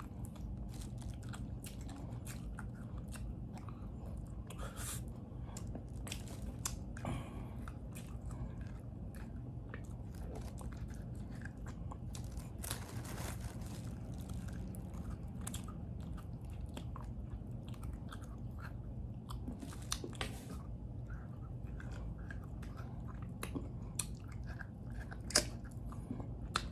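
Close-up eating sounds: a man chewing and gnawing on soft braised pig's trotters, with many short wet clicks and smacks of the mouth, over a steady low hum.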